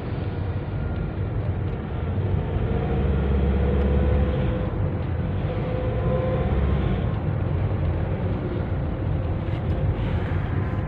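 Nissan NV350 van under way, heard from inside the cabin: steady engine and road rumble with a faint, thin whistle running over it, the abnormal noise being checked on this test drive.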